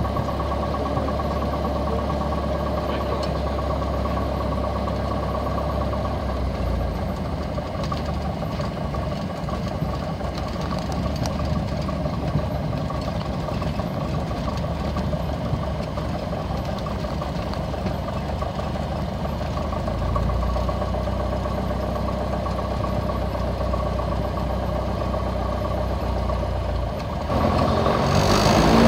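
Piper PA-28's piston engine and propeller running steadily at low power, heard inside the cockpit. Near the end the engine speeds up and grows louder.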